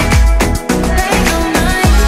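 Electronic dance music with a deep kick drum on a steady beat, about two beats a second.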